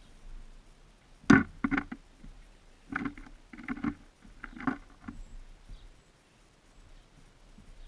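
Birds feeding at a seed feeder right next to the microphone: several bursts of sharp knocks and scratches as they peck and hop on the feeder, the loudest about a second in.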